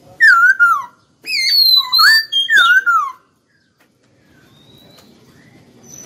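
Caged black-throated laughingthrush singing in its natural wild voice: a run of loud, clear whistled notes that swoop up and down, in a short burst and then a longer one, stopping about three seconds in.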